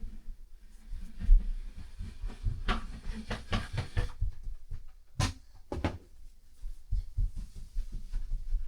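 Potatoes and containers being handled and set down on shelves: a run of low knocks and thuds, a dense rustling clatter about three seconds in, and a few sharp clicks.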